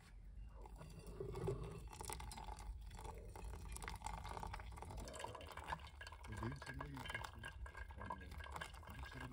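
Faint clinking and scraping of cookware, a utensil stirring in a pot.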